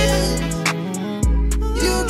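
Instrumental passage of a song: deep held bass notes under sustained chords. The bass drops out for about half a second near the middle and comes back with a drum hit.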